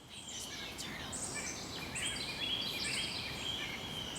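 Several small birds chirping and calling at once, many short overlapping notes at different pitches, over a steady background hiss.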